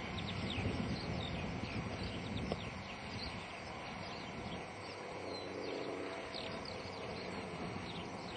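A distant model ducted-fan jet's two-stroke engine dies away over the first few seconds. It leaves a quiet outdoor background with many short, high bird chirps.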